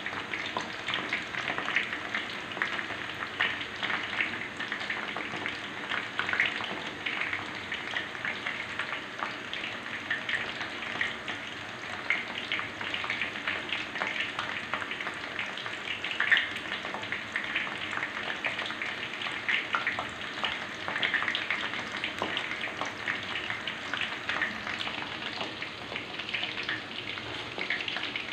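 Ketupat palas, leaf-wrapped glutinous rice parcels, deep-frying in a wok of hot oil: a steady sizzle dense with small crackles and pops.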